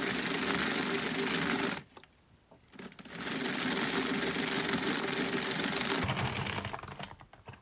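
Small hand-cranked plastic circular knitting machine being cranked round, its needles clattering steadily as it knits rounds. The clatter stops for about a second near two seconds in, resumes, then thins into a few clicks and fades near the end.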